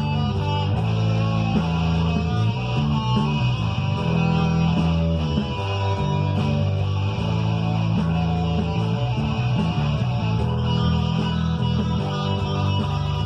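Guitar playing along to a rock backing track with bass underneath, continuous throughout.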